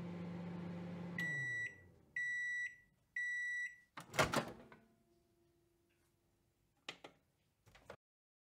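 Microwave oven finishing: its running hum winds down and stops, then three beeps sound the end of the cooking time. A loud clunk follows as the door is opened, and two short clicks come near the end.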